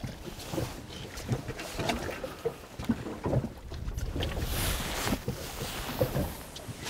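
Water lapping and slapping against a small boat's hull, with wind on the microphone and small knocks. About four and a half seconds in there is a brief swish as a lure is cast with a spinning rod.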